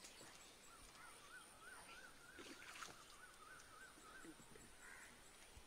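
Near silence: faint outdoor ambience with a faint, distant warbling call that rises and falls about four times a second for about three seconds.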